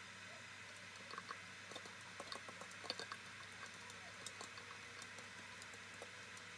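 Small, light clicks and scrapes of minced garlic being scraped by hand from a plastic bowl into a glass jar of oil, scattered irregularly and mostly in the first half, over a faint steady hiss.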